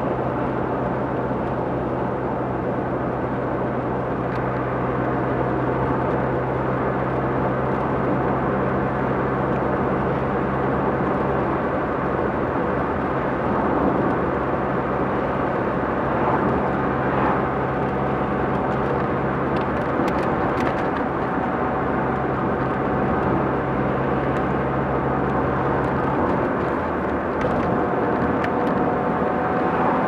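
Car interior while driving: a steady hum of road and tyre noise with a constant low engine note. Near the end the engine note changes as the manual gear lever moves, as in a gear change.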